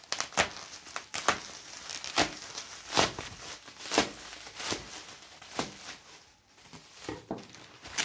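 Bubble wrap crinkling and rustling as it is pulled and torn open by hand, with sharp crackles about once a second.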